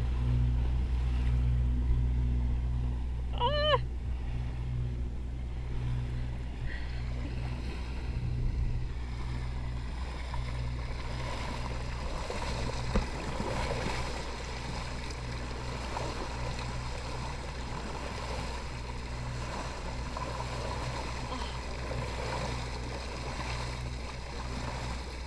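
Sailboat's motor running with a steady low hum while water rushes along the hull, the rushing growing louder from about ten seconds in. About three and a half seconds in, a short high squeal of a person's voice.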